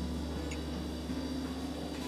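Soft background music with held low notes that change about a second in.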